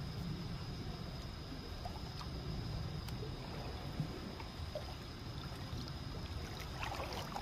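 Small waves lapping gently at the harbour edge over a steady low rumble, with a faint steady high whine throughout and one sharp tick about four seconds in.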